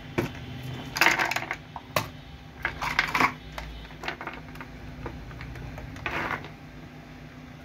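Small hard parts clattering on a workbench: a glass jar set down and a handful of DC power plugs tipped out and handled, in several short bursts of rattling clicks, the last about six seconds in.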